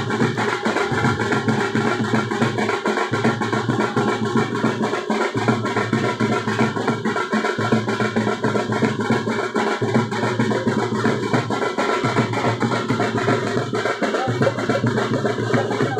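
Loud, steady drum-led music with a fast, unbroken beat.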